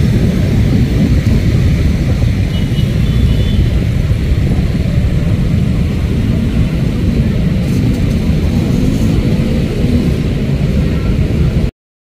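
Loud, steady low rumble of road traffic and idling engines, cutting off suddenly near the end.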